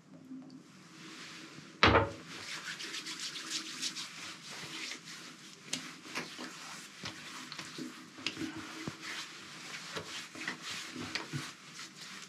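Hands splashing water onto the face and rubbing it at a sink after shaving, in a dense, irregular run of splashes. There is one sharp knock about two seconds in.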